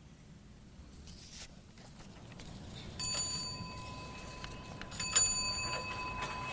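A small bell struck twice, about two seconds apart. Each strike rings on with a clear, steady high tone, and the ringing of the first is still sounding when the second comes.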